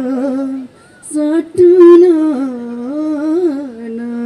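A man singing a Nepali folk song unaccompanied, holding long wavering notes, with a breath pause about a second in.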